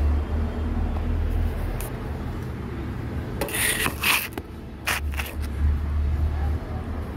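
A few short scraping, rubbing noises of objects being handled, clustered a little past the middle, over a steady low rumble.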